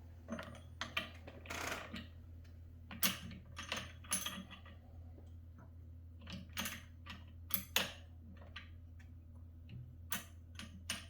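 Irregular light clicks and small metallic clinks of hardware and parts being handled during exercise bike assembly, over a steady low hum.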